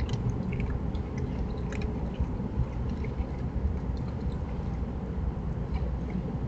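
Raccoon eating dry pet food from a dish: scattered small crunches and clicks over a steady low background rumble.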